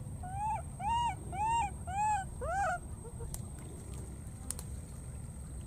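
Baby macaque calling for a missing companion: five short coos in quick succession, each rising then falling in pitch, stopping about three seconds in.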